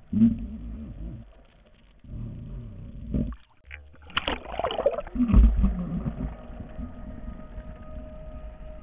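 Muffled water sloshing and low thumps against a GoPro's waterproof housing as the camera bobs under and at the sea surface, with a louder splash and bubbling about four to five seconds in as it breaks the surface and goes back under.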